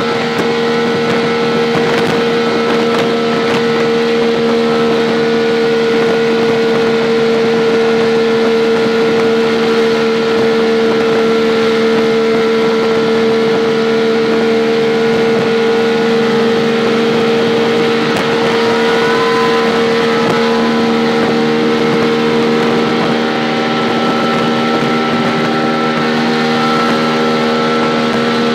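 Auto-rickshaw engine running at a steady, high, unchanging pitch as the rickshaw cruises at speed, heard from inside the open cab along with wind and road rush.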